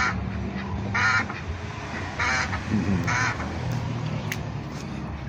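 Poultry giving four short, harsh, nasal calls about a second apart.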